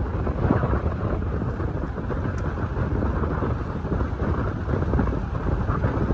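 Steady road and wind noise of a car driving, heard from inside the cabin.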